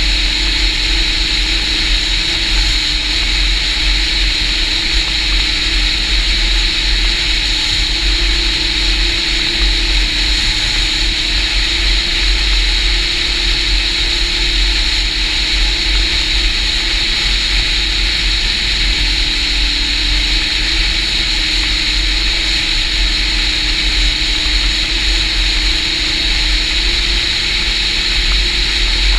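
Snowmobile engine running at a steady cruising speed along with the hiss of its track on packed snow, a constant drone that dips slightly in pitch about two-thirds of the way through. Heavy low wind rumble on the microphone.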